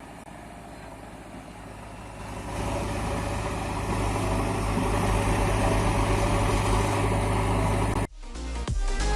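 A vehicle engine running steadily at idle with a low, even pulse, growing louder about two and a half seconds in. It cuts off near the end as electronic music comes back in.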